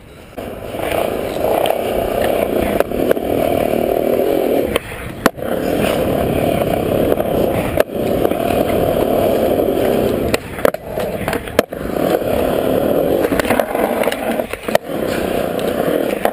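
Skateboard wheels rolling on smooth concrete, a steady loud rumble starting about half a second in, broken by about five sharp clacks of the board.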